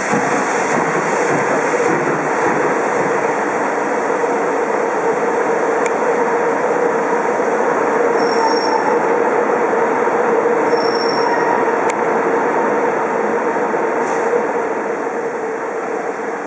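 DR Class 23.10/35.10 steam locomotive moving slowly, with a loud steady hiss of steam escaping low around its cylinders. The hiss fades a little near the end as the engine draws away.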